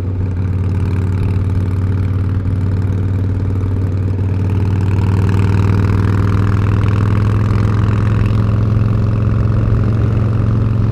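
Motorcycle engine running steadily at road speed, with wind and road rush over it. The throttle is held by a throttle lock, and engine and rush grow somewhat louder about halfway through as the bike picks up speed.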